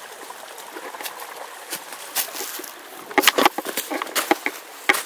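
A shallow creek trickling over stones, then footsteps crunching through dry fallen leaves in a quick run of steps from about three seconds in.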